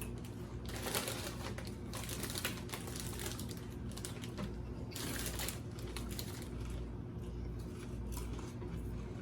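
Crisp crunching of All Dressed potato chips being eaten, with crinkly rustles of the chip bag, in irregular short bursts over a steady low hum.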